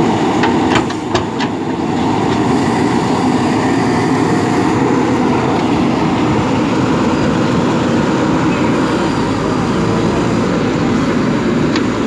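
JCB 3DX backhoe loader's diesel engine running steadily under load while the backhoe digs in wet mud, with a few short clanks about a second in and one more just before the end.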